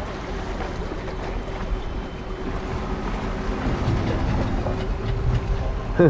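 Wind blowing across the microphone over river water lapping against a rocky shoreline, a steady rushing noise with a faint steady hum beneath it.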